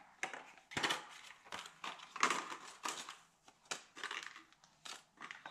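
Stiff clear plastic blister pack being pried open and handled by hand, giving a run of irregular crackles and crinkles.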